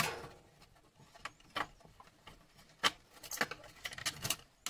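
Hand tools clicking and knocking against the plastic and metal parts of a scrapped appliance being taken apart: a sharp knock at the start, a few single clicks, then a quick run of small clicks near the end.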